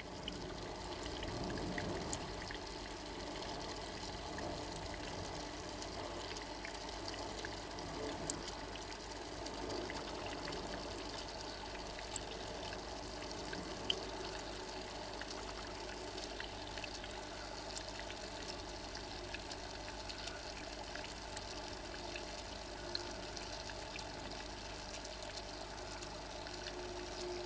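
Steady trickle of running water with a low hum underneath, and a few faint clicks scattered through it.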